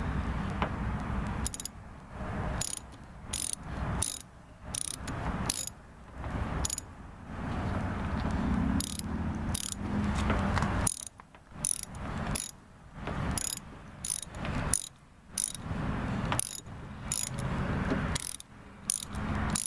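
Ratchet socket wrench clicking in repeated back-and-forth strokes as it loosens a door-handle screw.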